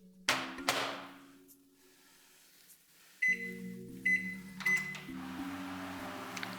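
Microwave oven being started: two sharp knocks as the door is shut, then three short high keypad beeps and the steady hum of the oven running as it melts a tablespoon of butter in a mug.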